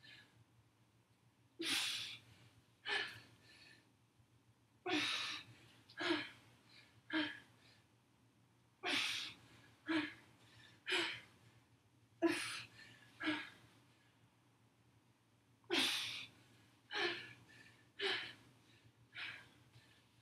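A woman breathing hard from exertion: sharp, noisy gasps and exhales about once a second, in runs separated by short pauses.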